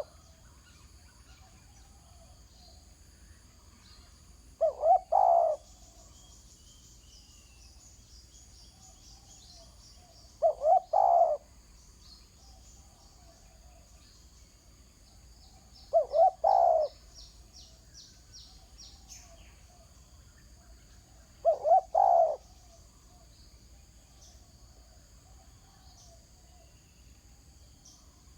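Spotted dove cooing: a short phrase of two or three notes, repeated four times about every five and a half seconds.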